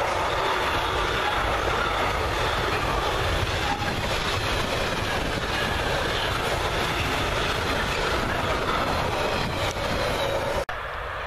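Long intermodal freight train of container and swap-body wagons passing at speed: steady, dense noise of wheels on the rails and rolling wagons. Near the end it cuts off suddenly to a fainter background.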